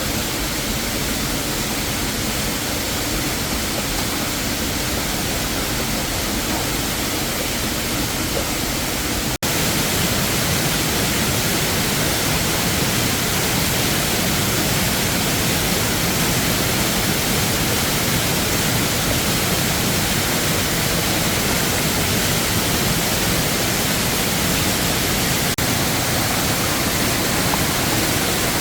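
Steady rushing of a waterfall, a dense even noise with no pattern. It breaks off for an instant about nine seconds in and runs a little louder after.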